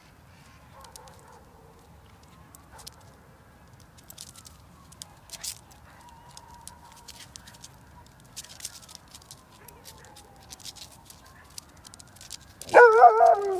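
Two dogs play-wrestling: soft scuffling with scattered small clicks and rustles, then near the end a loud, wavering yelp from one of the dogs, lasting under a second.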